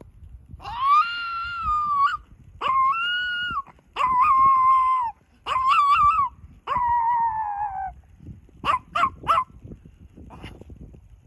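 Chihuahua howling on command: five drawn-out howls one after another, the last sliding down in pitch, then three quick short yips near the end.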